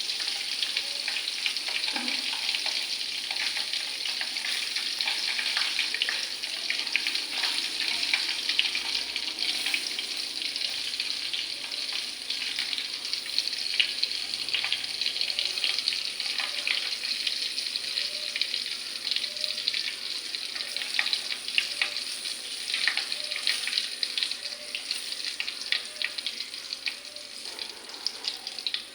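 Fish frying in hot oil: a steady sizzle crowded with small crackles and pops.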